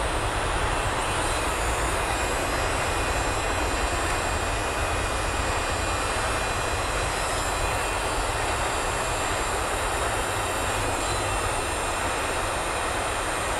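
Handheld electric heat gun blowing steadily, its fan and heating element running as it shrinks adhesive-lined heat-shrink tubing over a crimped wire terminal.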